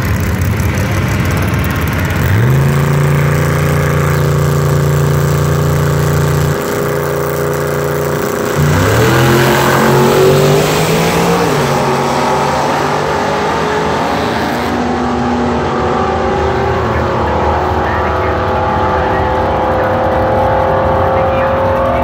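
Drag-race car engines at the starting line. About two seconds in they are held at steady high revs for a few seconds, then drop. They then launch with rising revs that carry on more distantly and higher-pitched as the cars run down the strip.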